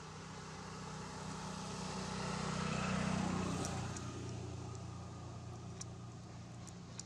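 A motor vehicle passing on the road: its engine and tyre noise swells to its loudest about three seconds in, then fades away.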